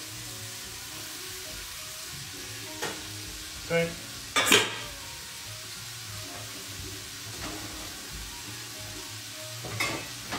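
Fresh green beans and squash sizzling steadily in a hot pan, just put in to cook. A few short knocks of utensil against pan come through, the loudest about halfway.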